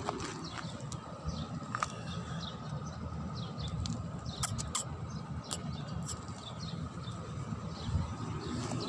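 Small birds chirping over and over in the background above a steady low rumble, with a few sharp clicks about halfway through.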